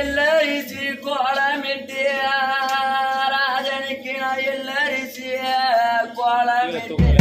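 A single voice singing an oppari, the Tamil funeral lament, in long wavering held notes broken by short breaths between phrases, with no drums.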